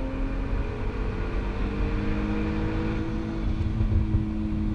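Turbocharged 3.2-litre VR6 engine of a Volkswagen Golf Mk4 R32 accelerating on track, its note climbing slowly, heard from inside the cabin over a steady road and tyre rumble.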